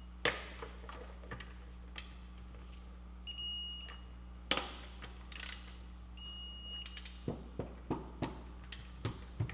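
Wheel lug nuts being tightened with a torque wrench to about 100 foot-pounds: sharp metal clicks of the wrench and socket, bunched near the end, with two short electronic beeps about three seconds apart.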